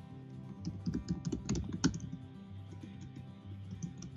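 Typing on a computer keyboard: a quick run of keystrokes in the first couple of seconds, then a few more scattered ones, over soft background music.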